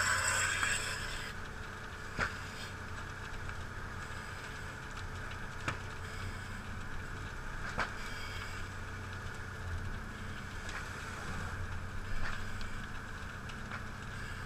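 A steady low engine hum runs throughout, with a few single sharp pops spaced several seconds apart from the burning building. A loud hiss dies away about a second in.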